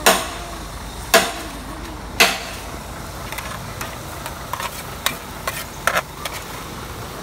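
Three sharp knocks about a second apart, then a metal spatula scraping and clinking against a steel frying pan as corn kernels are stir-fried, with a light sizzle under it.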